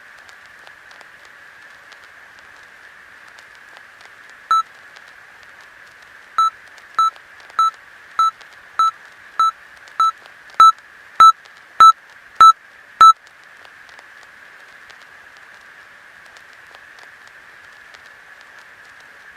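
Short beeps of a single test tone over a steady hiss, as in a hearing test: one beep, then a pause, then an even run of twelve beeps at a little under two a second, the last five much louder.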